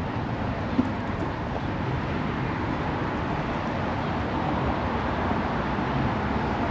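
City street ambience: a steady wash of road traffic from passing cars, with one brief sharp click a little under a second in.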